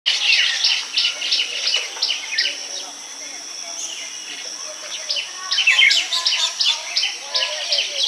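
Baya weavers chattering: rapid runs of short, high, falling chirps that thin out in the middle and pick up again densely near the end.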